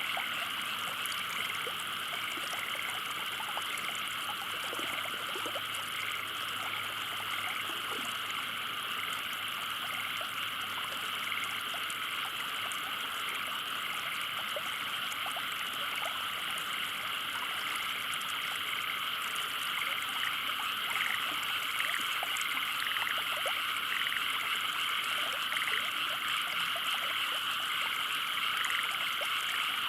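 A chorus of many frogs calling at once, a dense, steady din with single calls standing out above it, getting a little louder in the last third.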